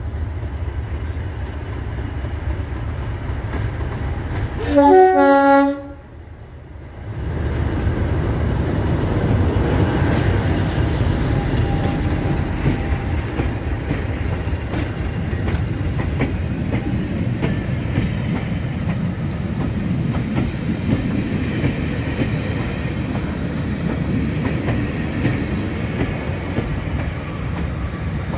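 A diesel locomotive's horn sounds once for about a second, about five seconds in. After a brief drop, the Class 37 and Class 50 diesel locomotives and their coaches pass close by at speed: a steady engine rumble with wheels clattering over the rail joints.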